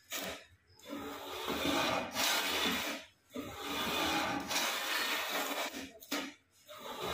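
Homemade double-blade wooden hand plane pushed along a board, its blades shaving the wood in strokes. There are two long strokes of about two to three seconds each, with short strokes at the start and near the end.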